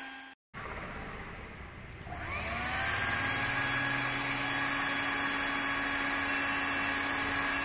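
Blower of a Toplink PVC hot-air welding machine: after a short dropout and a soft hiss, the motor spins up about two seconds in with a rising whine, then runs steadily with a rush of hot air as the machine powers on.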